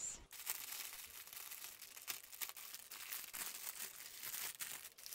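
Clear plastic wrap crinkling as it is handled and pulled open by hand: a continuous run of small crackles.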